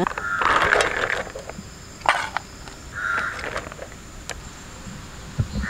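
A crow cawing: one long caw at the start, then two shorter caws about two and three seconds in, over a steady high insect drone.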